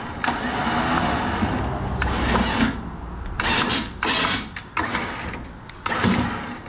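Champion 10,000 lb electric winch motor running in bursts, switched on and off several times from a wireless remote: a longer run, then a few shorter ones that start and stop abruptly.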